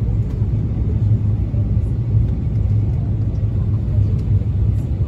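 Steady low rumble inside the cabin of an Airbus A350-900 in flight on approach: engine and airflow noise heard from a window seat.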